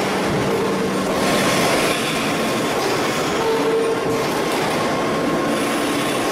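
Large hydraulic forging press and forge-hall machinery running: a steady loud hissing din with short whining tones that come and go every few seconds.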